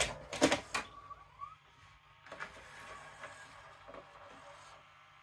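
A VHS cassette pushed into an LG EC290W VCR with a few loud clunks. The loading mechanism then runs with a short rising whine and a few clicks as it draws the cassette in and threads the tape, stopping near the end.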